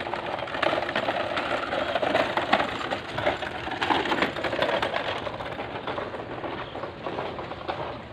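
Small hard wheels of two folding platform hand trucks rattling over concrete paving in a fast, continuous clatter that fades out in the last few seconds.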